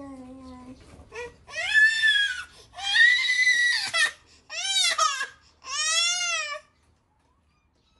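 A toddler crying: a soft falling whimper at the start, then four loud, high-pitched wails of about a second each, stopping about two-thirds of the way through.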